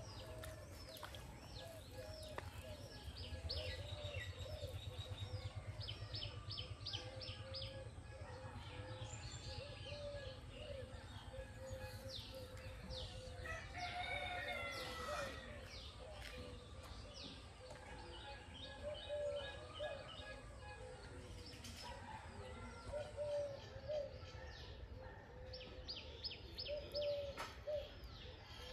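Birds calling around a rural pond: repeated runs of quick high chirps from small songbirds over lower, wavering calls, with a louder drawn-out call about halfway through. A low rumble of background noise runs underneath.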